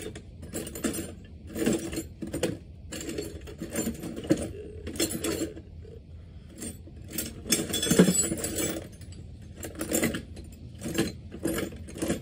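Loose metal hand tools, Allen wrenches and bits, clinking and rattling as they are rummaged through by hand, in short bursts every half second or so, the loudest about eight seconds in.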